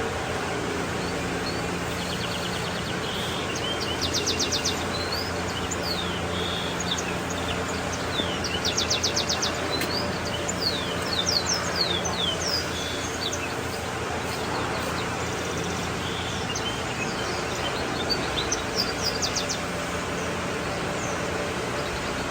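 Small birds chirping and trilling again and again: quick repeated notes and short falling calls, heaviest through the middle of the stretch. Under them runs a steady low hum with a few held tones.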